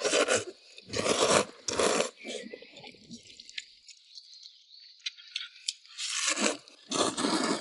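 Someone eating zhajiang noodles from a bowl, with noisy slurping and chewing: three loud bursts in the first two seconds, then two more near the end.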